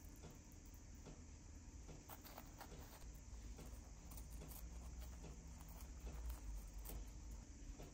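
Faint, soft tearing and crackling of soft baked pandesal bread rolls being pulled apart by hand, with scattered small clicks over a low steady hum.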